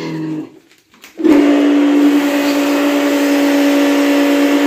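A small electric motor starts about a second in and runs steadily: a loud, even hum over a hiss.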